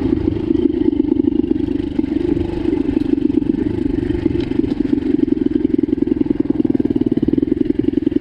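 Pit bike's single-cylinder engine running under throttle while being ridden, heard from on board the bike. The pitch stays fairly steady, with a brief dip about two seconds in.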